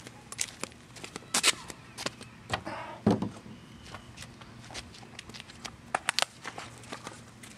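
Small fireworks going off in scattered sharp cracks and snaps. The loudest come about one and a half seconds in, around three seconds in, and in a quick cluster about six seconds in.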